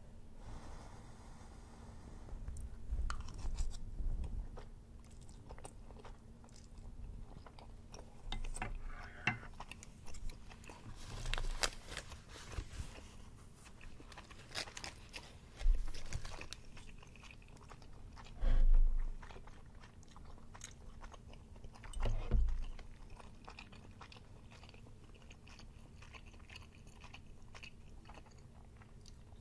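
Close-miked chewing of chewy Korean rice cakes (tteokbokki) with melted cheese and egg, with wet mouth clicks throughout. A few short, loud low thumps stand out in the middle.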